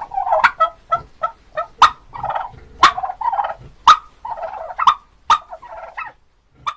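Turkey gobbling: rapid rattling calls repeated over and over, with sharp loud notes about once a second.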